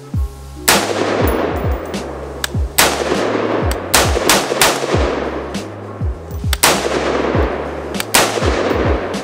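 An AR-15 pattern pistol with a 7.5-inch barrel fires about seven single shots at irregular spacing, three of them in quick succession near the middle. Each shot has a long echoing tail. The gun cycles from shot to shot without a stoppage, firing normally on a freshly replaced extractor.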